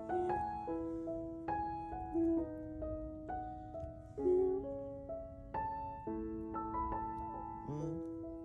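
Background piano music: a melody of sustained notes over held lower notes.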